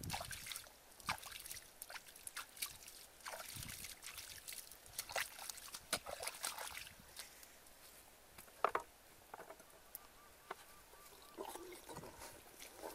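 Bare feet squelching and splashing through wet mud and shallow muddy puddles, in scattered short splashes and clicks, with one sharper splash a little past halfway.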